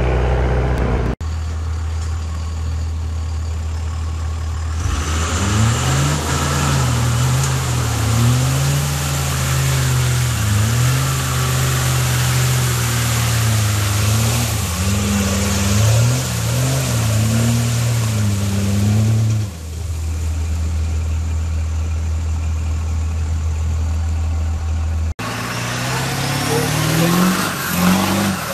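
Pickup truck engine revving up and down over and over while its wheels spin in deep mud, with a hiss of flying mud. The revving starts a few seconds in after a steady low running and lasts about fifteen seconds. Near the end a different truck's engine rises in pitch as it accelerates.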